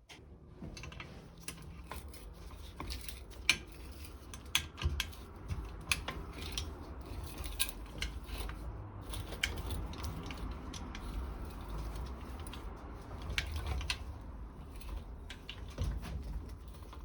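Irregular light clicks and clatter of small metal hand tools being handled, over a low rumble.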